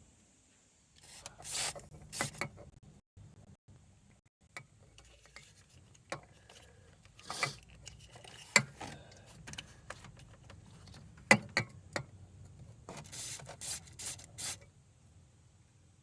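Tools and metal parts being handled: scattered sharp clinks and short scraping, rubbing noises at irregular intervals, with two louder clanks near the middle.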